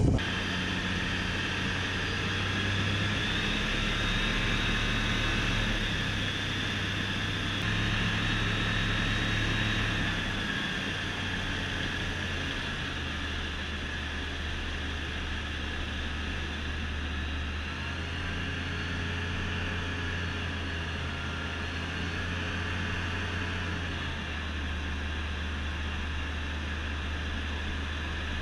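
Rotax 912 iS Sport four-cylinder engine and propeller of an F6 Hydran amphibious light aircraft in cruise flight, heard from inside the cabin as a steady drone. The low engine note steps slightly up and down in pitch a few times.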